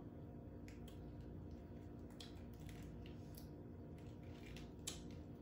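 Faint scattered crackles and soft clicks as a boiled lobster tail's shell is pulled apart by hand, over a steady low hum.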